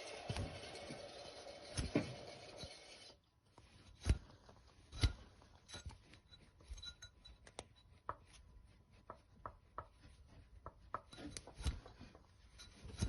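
Mercedes W124's M111 four-cylinder engine running, cut off abruptly about three seconds in. After that, scattered light clicks and knocks.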